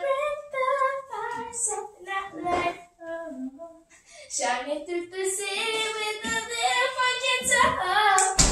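Girls and a woman singing together with their voices alone, with a brief pause partway through. A sharp click or knock comes near the end.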